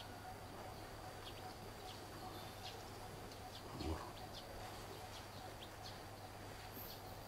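Quiet outdoor ambience: faint, scattered high chirps of birds over a steady low hum, with one soft brief sound about four seconds in.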